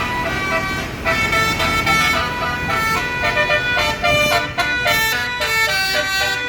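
Basuri telolet musical bus horn playing a quick melody of short held notes, with a low rumble underneath.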